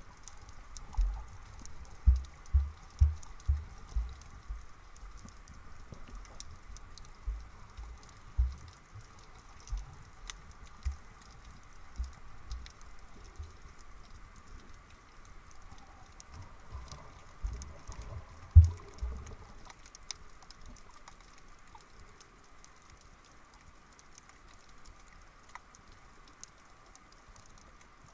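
Underwater sound picked up by a camera held below the surface: irregular muffled low thuds as the housing is moved and bumped through the water, the loudest about two-thirds in, after which they stop, over a faint continuous crackle of fine clicks.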